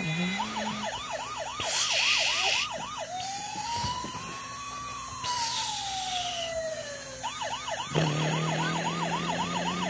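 Toy fire truck's electronic siren sounding: a fast warbling whoop, then one slow wail that rises and falls, then the fast warble again about eight seconds in. Short bursts of hiss come in over it now and then.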